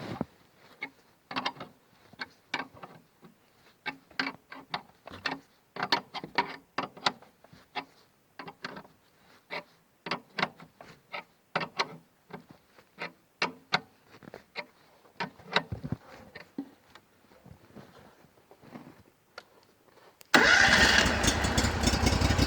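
Irregular light clicks and knocks, several a second, from hand work on a home-built sawmill. About two seconds before the end, an engine starts abruptly and runs steadily and loudly.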